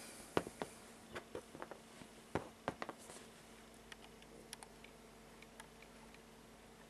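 A few sharp clicks and taps in the first three seconds as metal jewelry pliers and a jump ring opener are picked up off a tabletop, then faint scattered ticks over a faint steady hum.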